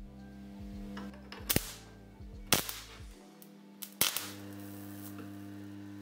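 Microwave oven transformers wired in series humming, with three sharp cracks of arcing as the screw makes and breaks contact with the output clamps. The cracks and sparks come from bad connections at the terminals. The hum drops out for about a second near the middle, then returns steady.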